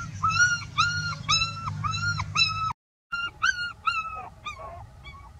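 Puppy crying in a run of short, high, even cries, about two a second. The sound drops out briefly about halfway, then a few more cries follow, falling in pitch and fading.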